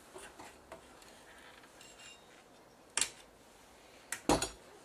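Electric desoldering gun's vacuum pump firing in two short bursts, about three seconds in and again near the end, sucking molten solder out of capacitor joints on a circuit board; a small click comes just before the second burst.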